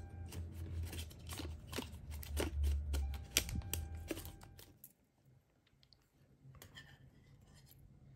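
Homemade cardboard slider-crank model being turned by hand at its paper-clip crank: a run of clicks and knocks about twice a second over a low rumble, stopping about five seconds in. After that only a few faint ticks remain.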